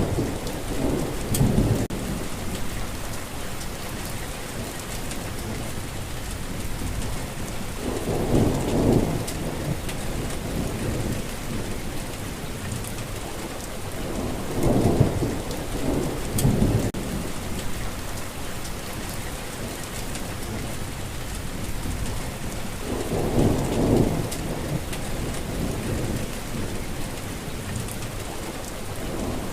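Steady heavy rain falling, with thunder rumbling low four times, each roll lasting a second or two.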